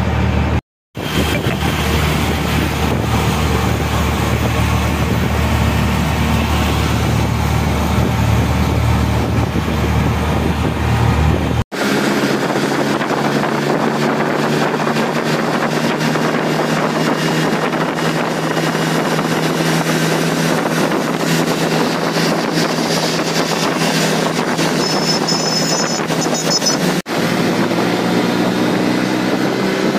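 Auto-rickshaw engine running steadily on the move, with wind rushing over the microphone. The sound drops out briefly about a second in and changes abruptly to a different engine note at about 12 and 27 seconds.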